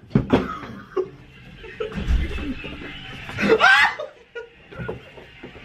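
Laughter: short snickers and chuckles, with a loud, high, wavering squeal of laughter about three and a half seconds in.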